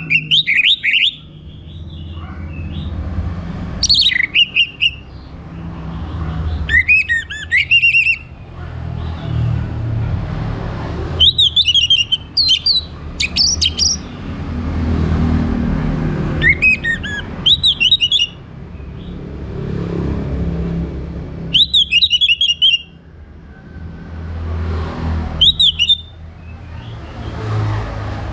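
An orange-headed thrush singing in short phrases every few seconds: loud whistled notes with fast, high twittering, about seven phrases in all. A steady low rumble runs underneath.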